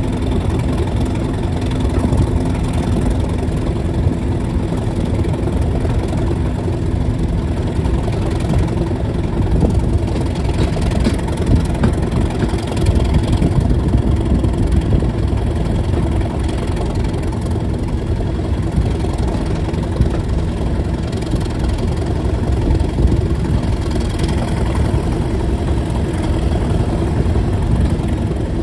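Class 37 diesel locomotive's English Electric V12 engine running steadily as it hauls the train, with the rumble of the moving train, heard from an open window of the coach behind it.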